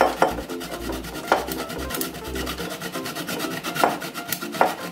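Lemon and orange peel being grated on a flat metal hand grater over a bowl. It comes as a series of rasping scrape strokes at uneven intervals, roughly one a second.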